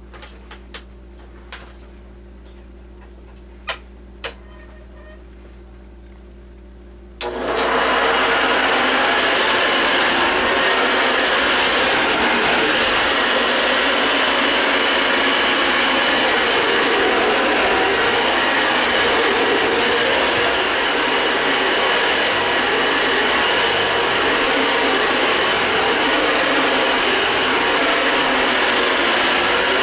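A few light clicks, then a Hoover Model 707 Convertible upright vacuum cleaner is switched on about seven seconds in and runs steadily and loudly, its motor and fan at full speed.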